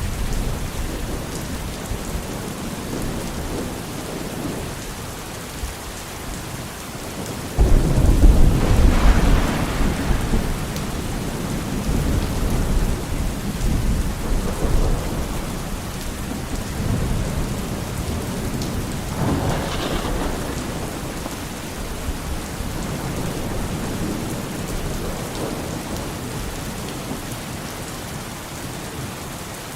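Steady heavy rain hissing, with a sharp clap of thunder about eight seconds in that rolls on for several seconds, and a second rumble of thunder near two-thirds of the way through.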